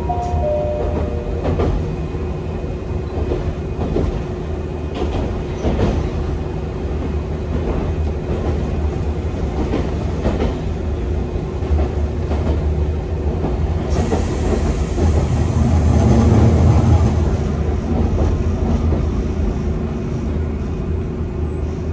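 Hankai Tramway streetcar running along its track, heard from inside the cab. A steady rumble and hum, with scattered clicks of the wheels over rail joints, swells louder with a rushing hiss about two-thirds of the way through.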